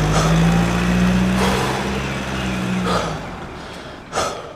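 A heavy vehicle's engine running steadily with a low drone, fading about three seconds in, with a brief louder burst near the end.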